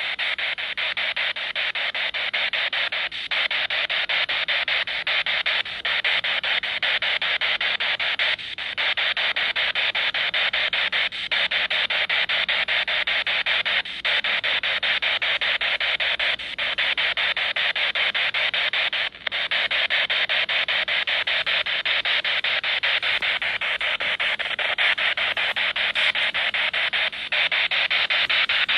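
Hissing radio static through a small speaker, as from a ghost box sweeping stations, with a fast flutter and a brief dropout every two to three seconds.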